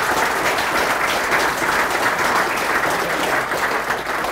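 Audience applauding steadily, starting to die down near the end.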